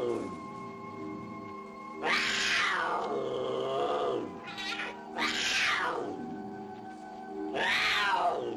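Mountain lion screaming in three long wailing calls that fall in pitch, about two, five and nearly eight seconds in, over sustained background music.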